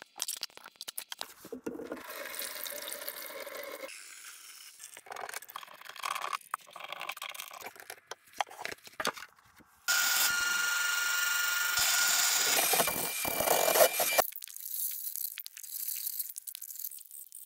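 Plastic sink-trap parts being unscrewed and handled, with clicks, rubs and scrapes. About ten seconds in, the electric motor of a Ridgid K-50 drain-cleaning machine starts and runs steadily with a whine for about four seconds to spin the cable, then stops, and the clicking handling sounds go on.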